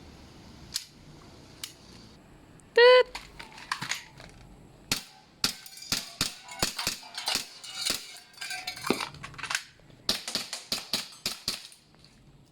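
A short electronic start beep, then an airsoft Glock 17 Gen5 pistol firing a long string of quick, sharp shots. The shots thin out briefly about three-quarters of the way through, then a final fast burst.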